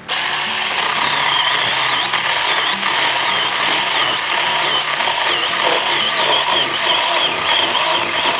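Small battery-powered electric mini chainsaw (Tool Life, from Temu) starting abruptly and cutting through a thick woody vine about 3 inches across. Its motor and chain give a high whine that wavers up and down in pitch as the chain bites.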